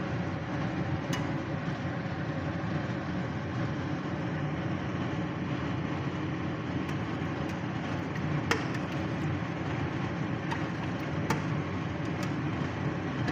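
Steady rushing kitchen noise while a pan of butter chicken sauce simmers down on the stove, with a few small sharp clicks now and then.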